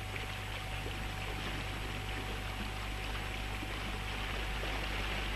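Water rushing steadily past the hulls of a 24 ft Strider Club sailing catamaran running fast downwind under spinnaker, with a steady low hum underneath.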